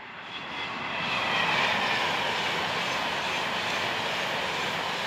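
Rushing noise of a passing vehicle, swelling over the first second and a half and then holding steady.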